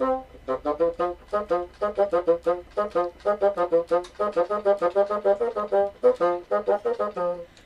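Solo bassoon playing a quick passage of short, detached notes, several a second, with a couple of brief breaks.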